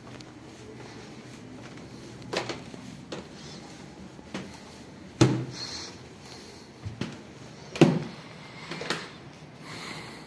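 A few sharp knocks and clicks, about four over ten seconds, two of them louder than the rest, heard against quiet room noise in a small room.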